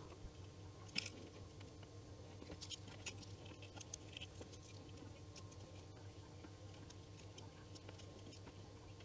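Faint crackling and ticking of rosin flux spitting as solder melts onto circuit-board joints under a soldering iron, with one sharper click about a second in. A low steady hum runs underneath.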